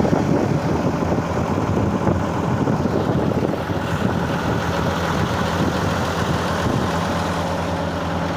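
A vehicle engine that had cranked without starting, its fuel tank and filter holding water, now running at a steady idle.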